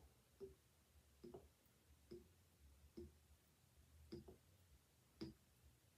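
Faint glugs of olive oil pouring from a large tin into a glass jar, a short gulp about once a second as air gets into the tin.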